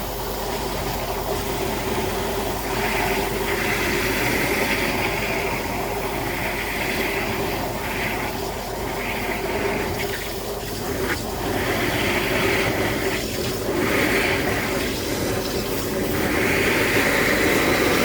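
High-pressure drain water jetter at work: its pump runs steadily while water rushes and splashes in repeated surges.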